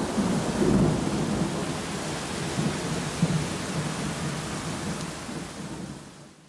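Thunderstorm: heavy rain with thunder rumbling, fading away near the end.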